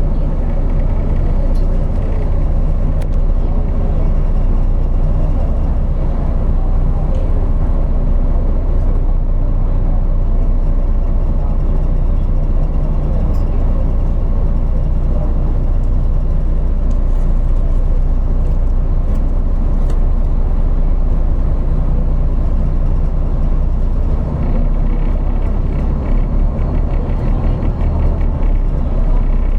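A motor vehicle's engine running steadily under way, with continuous road noise and a low, even engine hum.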